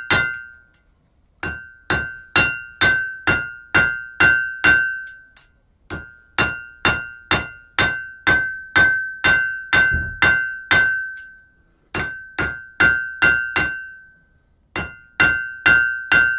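Hand hammer striking a red-hot piece of old scythe steel on a steel anvil. The blows come in four runs of about two and a half a second, with short pauses between, and each rings with a clear anvil tone.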